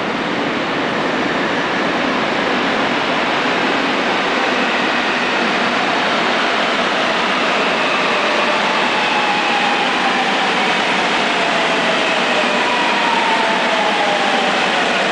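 Daewoo 1000-series metro train running into an underground station: a steady loud rumble and hiss of the train, with whining tones that fall in pitch through the second half as it slows at the platform.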